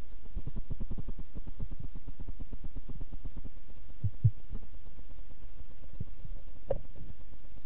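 Underwater sound heard through a camera's waterproof housing: a steady low rumble with many faint, irregular clicks. Two dull thumps come about four seconds in, and a sharper knock near the end.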